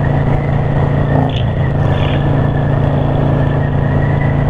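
Cruiser motorcycle's V-twin engine running at a steady cruise, heard from the rider's seat.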